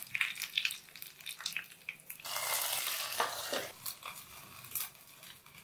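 Curry leaves and dried red chillies crackling and spitting in hot coconut oil in a small steel tempering pan. About two seconds in, a louder sizzle for about a second as the hot tempering goes into the curry. It is followed by a spoon scraping as it stirs the thick curry in a clay pot.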